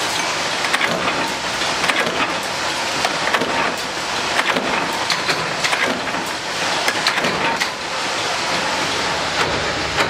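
Metalworking workshop din: machinery running steadily with frequent irregular metallic clicks and clanks of presses and parts.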